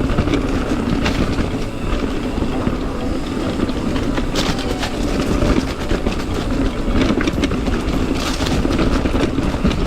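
Mountain bike riding fast down a rocky, chunky trail: a continuous clatter and rattle of tyres, chain and frame over rocks, with many sharp knocks.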